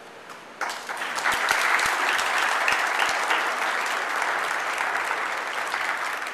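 Audience applauding, breaking out suddenly about half a second in and carrying on steadily.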